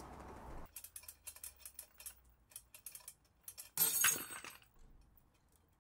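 Light metallic clinks from a steel shackle and S-hook under a hanging crane scale, then a short, sharp loud noise about four seconds in as the 3D-printed ABS layer-adhesion test piece snaps under load.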